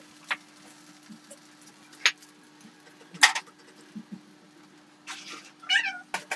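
Oil popping and crackling now and then around an adai frying on an iron dosa tawa, a few sharp pops among small ticks, over a faint steady hum.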